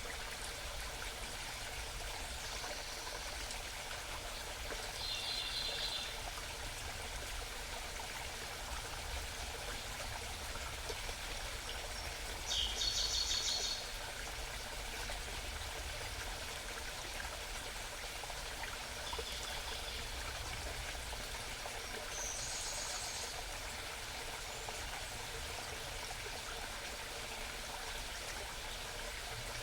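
Small mountain stream babbling steadily, with a wild bird singing five short, rapid high trills over it; the loudest trill comes about halfway through.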